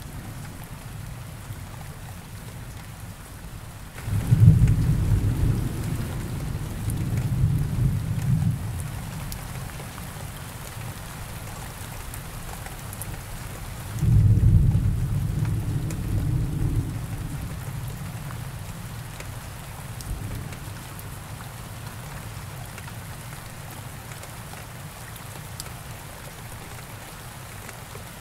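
Steady rain with thunder: a low roll of thunder starts suddenly about four seconds in and rumbles for about four seconds, and a second one starts about fourteen seconds in and fades away over a few seconds.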